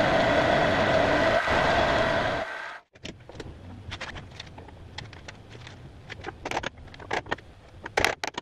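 Milling machine spindle and end mill cutting a slot in a round metal workpiece: a loud, steady machining whine with several held pitches. About three seconds in it cuts off abruptly, and a much quieter stretch of scattered sharp clicks and ticks follows.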